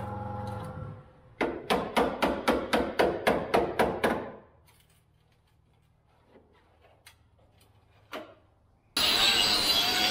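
Hand hammer driving a chisel against a car's steel body panel, sharp blows about four a second in two runs, then a pause with a single knock. About nine seconds in, a small angle grinder starts grinding the steel, loud and steady.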